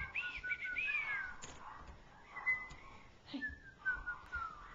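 Puppy whining: several short high-pitched whines in the first second and a half, one more about halfway through, and a few falling whines near the end.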